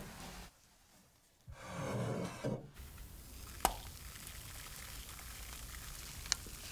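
Thick sponge cake batter being poured from a glass mixing bowl into a parchment-lined round cake pan, with a louder stretch of wet batter noise about two seconds in and two sharp clicks later.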